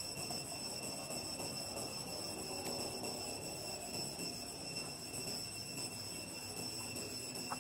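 Insects droning in a steady high-pitched chorus over a low, even background noise.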